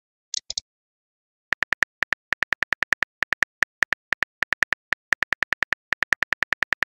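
Phone keyboard typing sound effect: rapid, short, evenly spaced key clicks in runs of four or five, starting about a second and a half in, after a few brief high ticks near the start.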